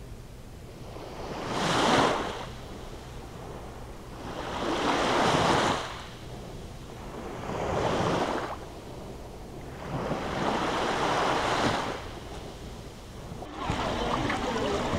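Small sea waves breaking on a sandy shore, one every three seconds or so, each a wash of surf that swells and fades away.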